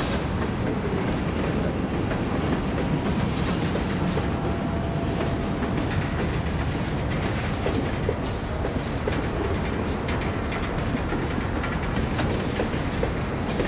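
Freight cars of a mixed train rolling past on curved track: a steady rumble of steel wheels on rail, with irregular clicking of wheels over the rails.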